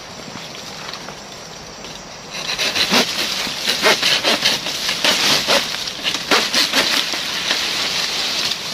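Sago palm fronds rustling and crackling as they are handled: a low rustle at first, then from about two seconds in a dense run of sharp crackles and snaps.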